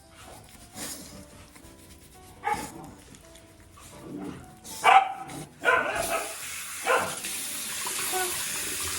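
Jindo dog giving a few short barks during a bath, the loudest about five seconds in, with shower water starting to run about six seconds in.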